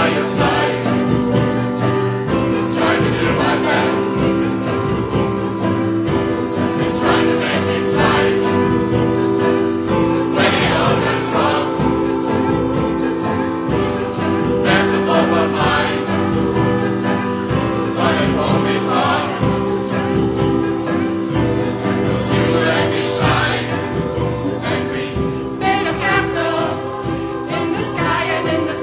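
A large amateur choir singing a song live, many voices holding sustained chords together with instrumental backing.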